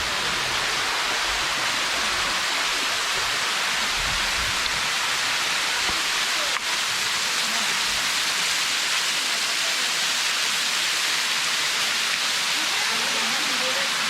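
A waterfall's falling water making a steady, unbroken rush of noise.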